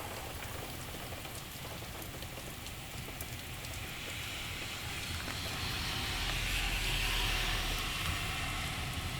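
Heavy rain pouring steadily, with scattered sharp drop ticks. About halfway in, a hiss with a low rumble swells up, peaks, then eases slightly near the end.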